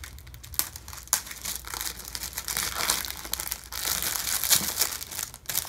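Plastic wrapping crinkling and crackling as a rolled mouse pad in its plastic sleeve is pulled out of a cardboard box. It comes as an uneven rustle with many small sharp crackles, louder about four seconds in.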